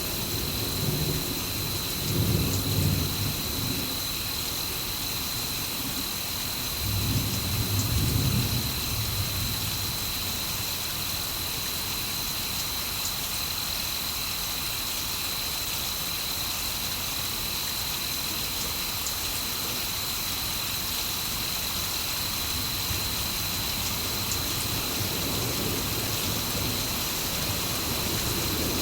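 Steady heavy rain hissing, with low thunder rumbling twice in the first several seconds, then rain alone. A thin steady high-pitched tone sits under the rain.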